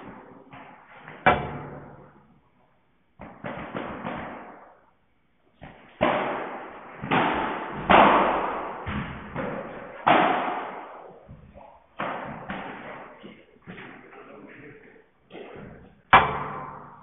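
Padel rally: the ball is struck back and forth by paddles, a string of sharp knocks at irregular intervals, each ringing out in the indoor hall.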